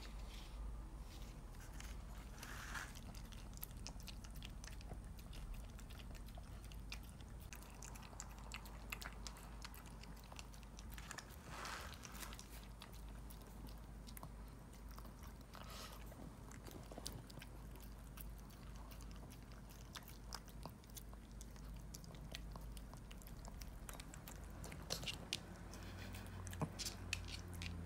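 A Shih Tzu eating wet dog food from a ceramic bowl: quiet wet chewing and biting with many small scattered clicks.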